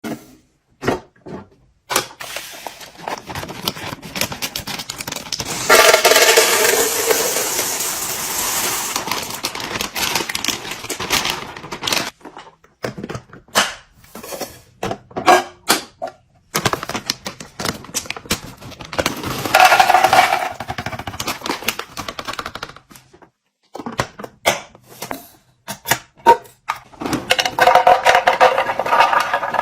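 Restocking sounds: packaged items and containers being handled and set down, with many sharp taps, clicks and clatters. Three longer noisy stretches of rattling or rustling come about six seconds in, near twenty seconds, and near the end.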